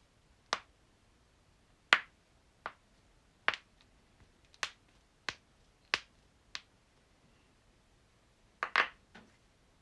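Knuckles and finger joints of the hands being cracked: about ten sharp pops, spaced irregularly under a second or so apart, with a short pause before a quick pair near the end.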